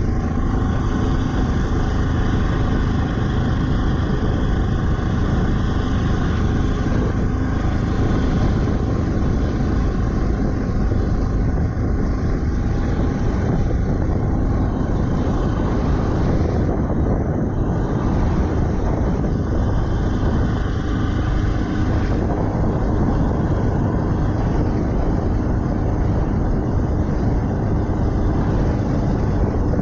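Jet boat under way, its 4.8 L LS V8 engine running steadily with no change in speed.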